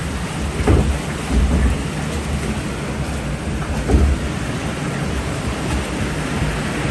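Rushing water of a log flume ride with wind buffeting the microphone, a steady noisy rumble broken by a few low thumps, the loudest about four seconds in.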